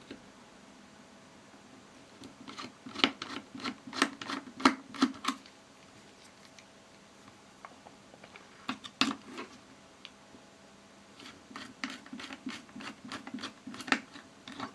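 Small clicks, taps and scrapes of a screwdriver working on the plastic housing of a Wahl 9655 hair clipper as its screws are taken out, coming in scattered clusters with quiet gaps between.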